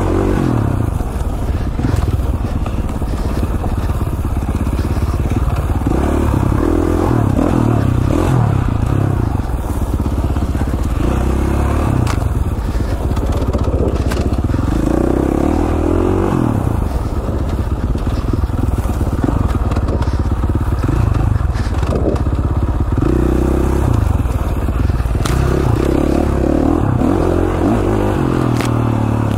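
KTM 450 single-cylinder four-stroke dirt bike engine being ridden, its revs rising and falling over and over as the throttle is worked, with a few sharp knocks along the way.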